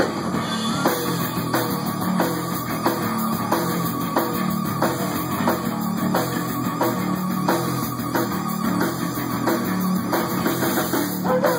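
Rock band playing an instrumental passage: drums keep a steady beat of about three hits every two seconds under a held guitar note.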